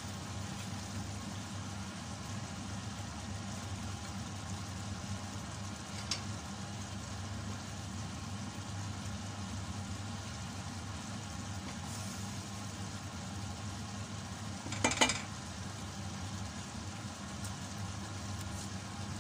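Chicken adobo in coconut milk simmering in a stainless-steel pot on a gas burner: a steady bubbling hiss over a low hum, stirred now and then with a wooden spoon. A brief knock comes about six seconds in, and a louder short clatter of utensil on pot about fifteen seconds in.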